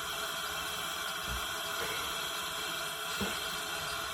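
Frida Baby sound machine playing its white-noise setting: a steady, even hiss like running water. Two soft knocks come through it, just over a second in and near the end.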